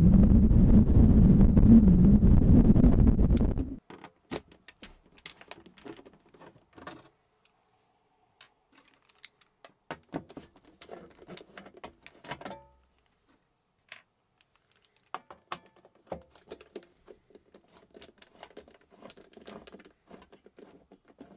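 Wind buffeting the microphone, cut off suddenly about four seconds in. Then a quiet small room with scattered light clicks and taps of small objects being handled.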